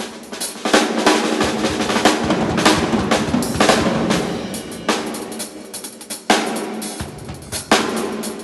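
Drum kit being played at a sound check: kick and snare strikes with ringing cymbals in a busy, irregular pattern.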